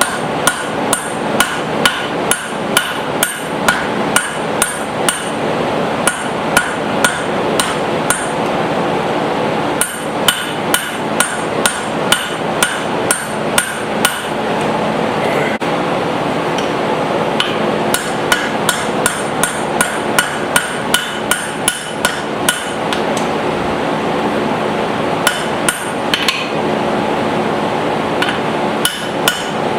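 Hand hammer blows on a guillotine tool, fullering hot steel to isolate a hammer face. The strikes come about two a second in runs separated by short pauses, over a steady running noise.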